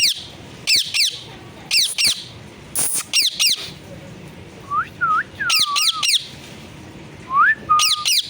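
Pet parrot calling in short, sharp, downward-sliding squawks that come in quick pairs and triplets about once a second. A few clear, rising whistled notes come around the middle and again near the end.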